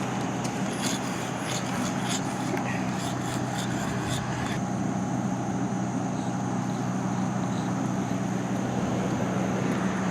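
Sidewalk chalk scraping across concrete in short, quick strokes that stop after about four seconds. A steady low hum runs underneath.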